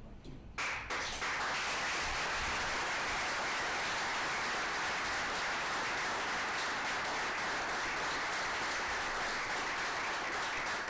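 A roomful of people applauding, starting about half a second in and keeping up steadily.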